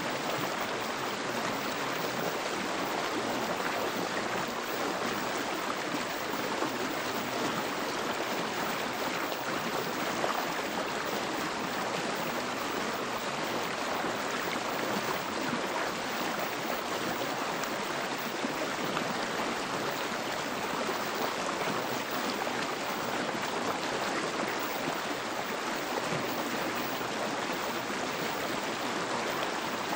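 Steady rushing sound of a flowing stream, an even hiss without breaks or changes, used as the sound bed of a subliminal affirmation track.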